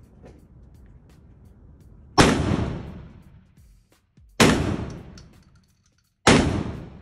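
Three 12-gauge shotgun shots, about two seconds apart, from a Rock Island Armory VR80 semi-auto. Each is a sharp blast that echoes off the walls of an indoor range and dies away over a second or so.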